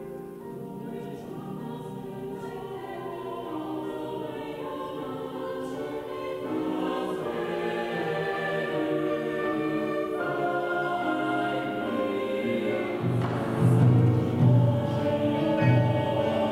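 Mixed choir singing with piano. About three seconds before the end it cuts to a louder piece in which deep Japanese taiko (wadaiko) drum beats sound under the choir.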